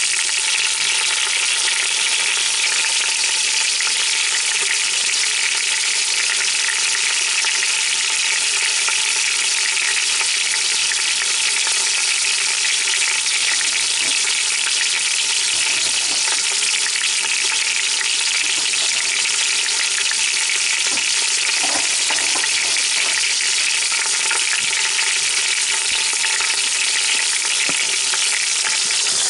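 Beef roast searing in hot oil in an Instant Pot on sauté mode: a steady sizzle.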